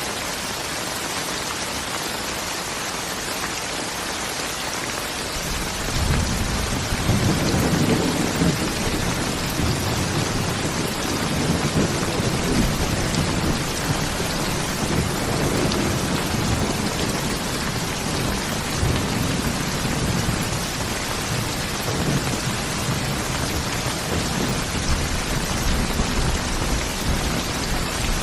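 Steady heavy rain hiss; about six seconds in, a low rolling rumble of thunder sets in and carries on, swelling and easing, under the rain.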